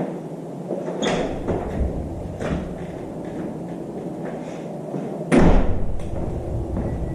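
A door being opened and slammed shut: a knock about a second in, a few lighter knocks, then a loud slam with a heavy thud about five and a half seconds in.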